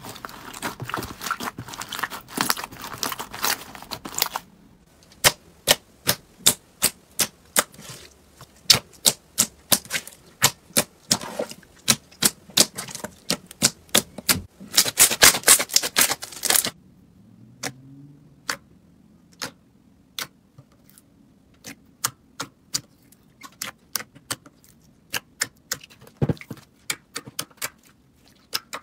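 Hands squeezing slime: at first a crunchy green slime packed with foam beads, crackling densely for about four seconds, then glossy slime pressed flat, giving sharp clicking pops as trapped air pockets burst. The pops come thick and fast in a burst past the middle, then sparser.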